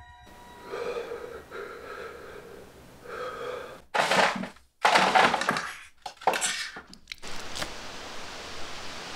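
Leftover food scraped out of a bowl into a plastic-lined trash can: several loud bursts of scraping, clatter and bag rustle over about three seconds. Softer muffled sounds come before them, and a steady even hiss follows.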